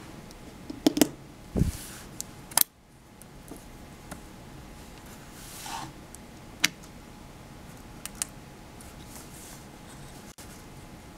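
Handling noises: sharp clicks and knocks of metal alligator clips and a copper-taped card being moved on a tabletop, with a low thump about a second and a half in. A few lighter clicks follow.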